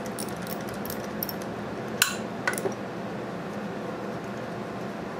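Light metal clinks of a small wrench and hand tools working on a small engine's connecting rod cap nuts. There is one sharp clink about two seconds in and two fainter ones just after.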